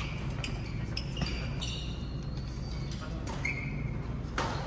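Badminton rally sounds: sharp racket strikes on the shuttlecock and sneakers squeaking on the court floor, with one loud strike near the end.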